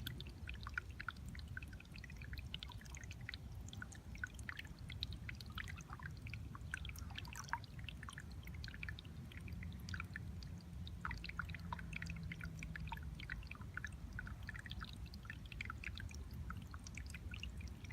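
Water trickling and leaking out of a rice paddy, a steady trickle of many small splashes and drips, over a low rumble.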